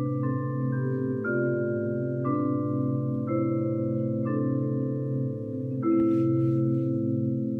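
Marimba ensemble playing slow, sustained chords over a steady low bass note, with the chord changing roughly once a second.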